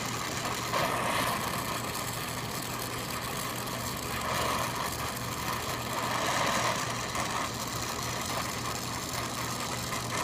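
Oxy-acetylene brazing torch flame hissing steadily while silver solder is melted around a copper joint on a filter drier. A steady low hum runs underneath.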